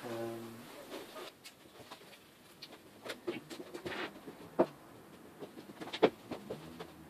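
Scattered light knocks and clicks of someone moving about and handling things in a workshop, with a brief pitched sound at the very start.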